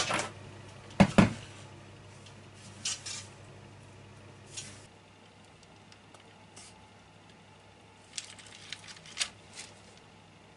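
Kitchenware handling: two sharp knocks about a second apart at the start as the Thermomix's metal mixing bowl is handled, then a few faint clicks and taps.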